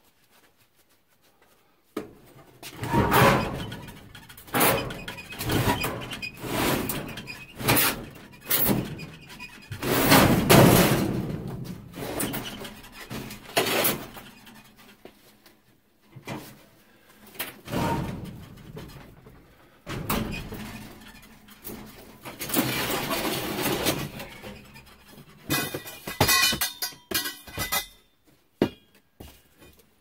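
A gas furnace's sheet-metal cabinet being moved out on a hand truck: a run of thunks, scrapes and metal bangs starting about two seconds in, with a ringing metallic clatter near the end.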